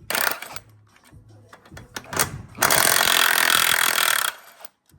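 A power tool run in bursts: a short one at the start, then a sharp knock, then a longer burst of nearly two seconds that cuts off.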